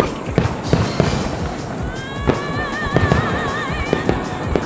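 Aerial firework shells bursting in quick, irregular succession, with music playing alongside; about two seconds in a long held note with a wavering vibrato comes in over the bangs.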